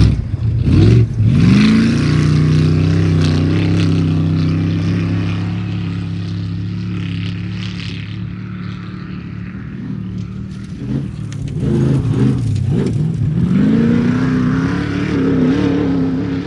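Off-road trophy truck engine accelerating hard: the pitch climbs early on, holds steady as it runs on and slowly fades, then climbs again about three seconds before the end.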